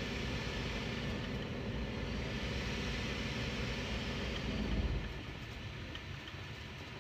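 Bambu Lab A1 Mini 3D printer running a print: a steady whirring hum of its motors and fans, described as very quiet. It eases off a little about five seconds in.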